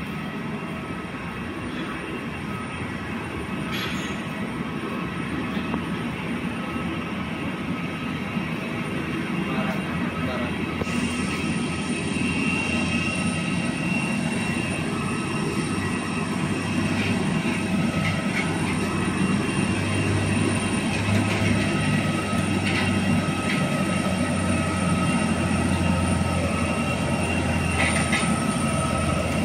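Steady turbine whine of aircraft on an airport apron over a low rumble, growing gradually louder; about eleven seconds in a wider hiss joins.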